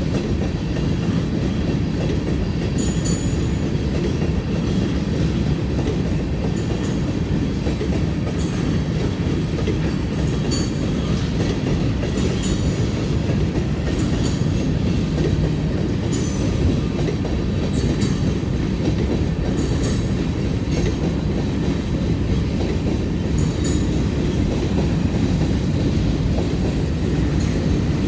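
Freight train's covered hopper cars rolling past at close range: a steady low rumble of steel wheels on rail, with short high-pitched squeals and clicks every few seconds.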